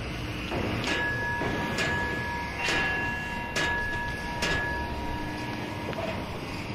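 Metal on a steel roll-off dumpster played as a percussion instrument: five evenly spaced strikes, a little under a second apart, each leaving clear ringing tones that hang on for several seconds, over a continuous rough scraping drone.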